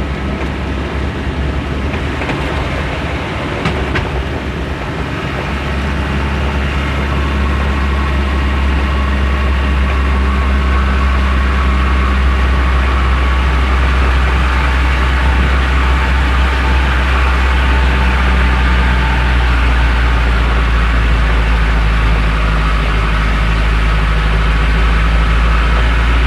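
Truck engine running with a steady low drone, growing louder a few seconds in and then holding steady. A single short click sounds about four seconds in.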